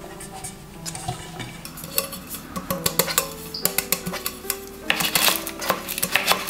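A metal cake tin tapped and turned to spread cocoa powder over its inside: runs of quick, light clinking knocks, the densest about two seconds in and again about five seconds in, over background music.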